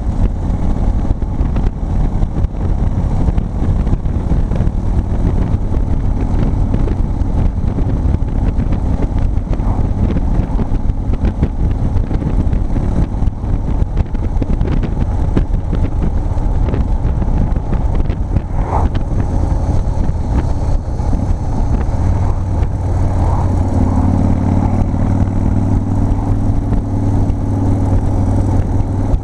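Big Dog K9 chopper's V-twin engine running under way, with wind rushing over the microphone. About two-thirds of the way through, the engine note settles into a steadier, more even drone.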